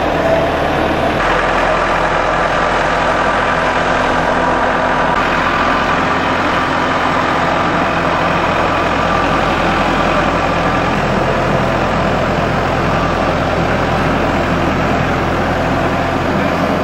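Mobile boat hoist (travel lift) engine running steadily as the gantry drives across the yard. The engine note steps up about a second in.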